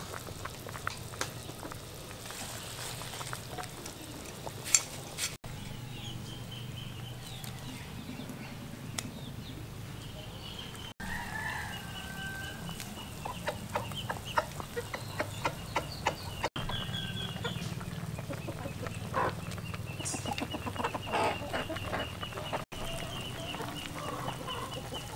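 Chickens clucking, with a steady high buzz in the background.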